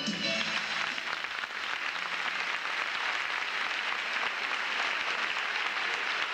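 Audience applauding steadily just after the last notes of a song die away.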